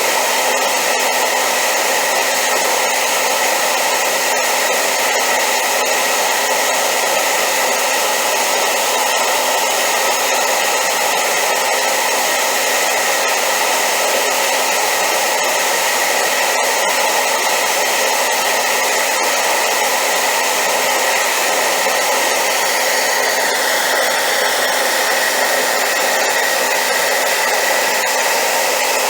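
Hair dryer running steadily on high power: a constant rush of air with a faint high whine. The tone shifts slightly about 23 seconds in.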